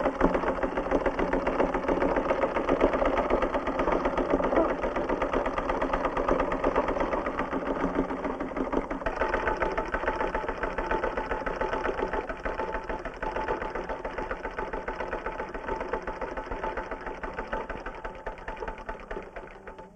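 Old black mechanical sewing machine running steadily, its needle clattering in a fast, even stream of stitches.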